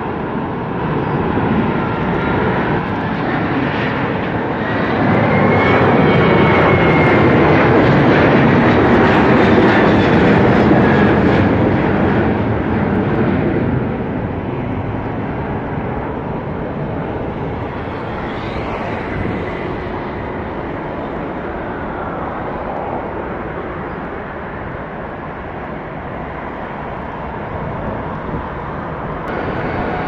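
Boeing 737-800's CFM56-7B jet engines at go-around thrust during an aborted landing. A loud jet roar with a sliding whine swells about five seconds in, holds for several seconds, then fades as the airliner climbs away.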